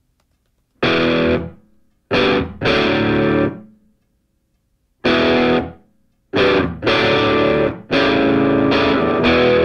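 Distorted electric guitar playing chords in a stop-start pattern: loud stabs and short held chords, each broken off into a brief silence.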